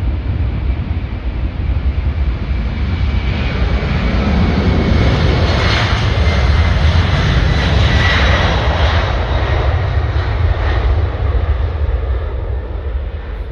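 Jet airliner going past, its engine noise building to a peak about halfway through with a thin high whine over a deep rumble, then easing off.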